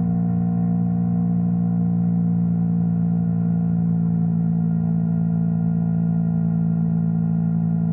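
Yamaha R3 parallel-twin engine running at a steady speed, heard as a constant low hum whose pitch does not rise or fall.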